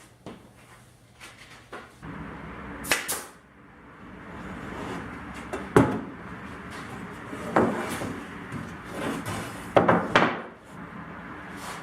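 A series of sharp knocks and clunks, one about three seconds in, then more near six, seven and a half, and two close together near ten seconds, over a steady noise that starts about two seconds in.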